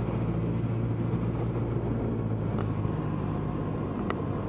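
Cessna 172's piston engine and propeller droning steadily in the cockpit at approach power on final, with a couple of faint clicks about two and a half and four seconds in.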